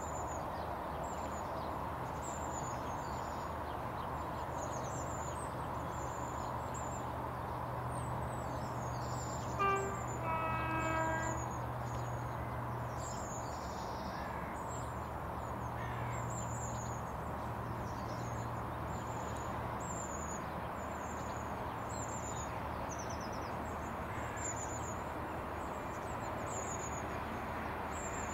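Approaching Freightliner Class 66 diesel locomotive sounding its two-tone horn about ten seconds in: a short higher note, then a longer lower one. The locomotive's engine drones low underneath, and a bird chirps repeatedly in high notes.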